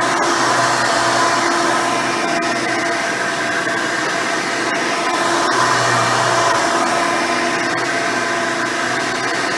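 Hoover Elite 350 upright vacuum running, its 7-amp motor with the original seven-blade fan giving a steady whine over airflow noise. A low hum under it swells and eases a couple of times.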